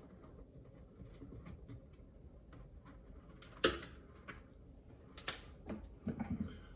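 Small scattered clicks and taps of a Torx screwdriver working on a dishwasher's plastic lower wash parts, with a sharp click a little past halfway, another about a second and a half later, and a short run of dull knocks near the end.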